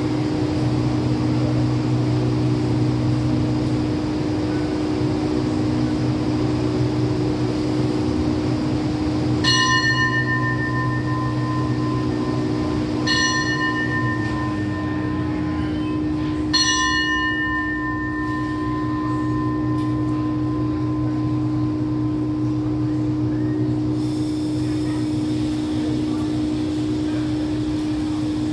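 A bell struck three times, a few seconds apart, each ring fading out, over the steady hum of a passenger train standing at the platform.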